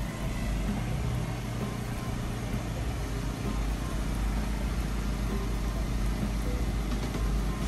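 Mudjacking truck rig's engine running steadily with a low rumble, under the hiss of heavy rain.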